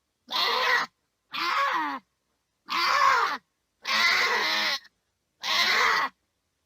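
Goats bleating and yelling: five separate calls of about half a second to a second each, with dead silence between them.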